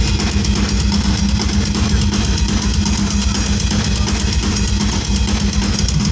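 Heavy metal drum solo played live on a full drum kit: rapid bass drum strokes under cymbals, loud and dense.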